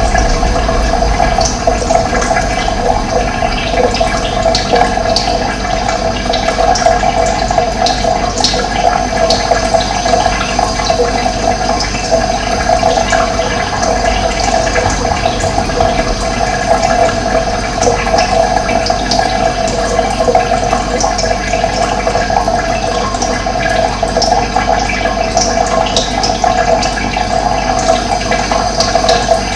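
Running water: a steady, loud rushing flow of a stream or small fall, strongest in a mid-pitched band.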